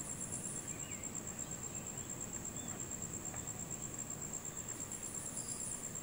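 Forest insects giving a continuous, high-pitched pulsing trill, with a few faint short chirps over it.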